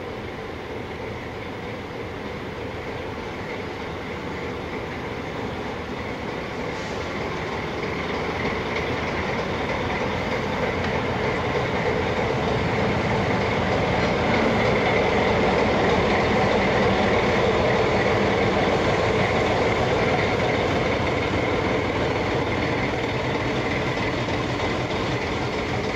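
MaK diesel locomotive V65.12 running as it moves slowly along the depot track, towing a steam tank locomotive. The engine and rolling noise grow louder until a little past halfway, then ease slightly.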